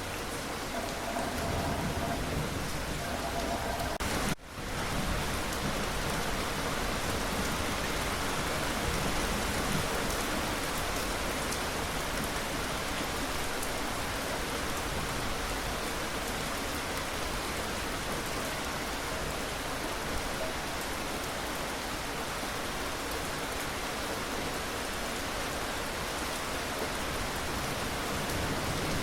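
Steady rain falling on surfaces, an even hiss, with a brief drop-out about four seconds in.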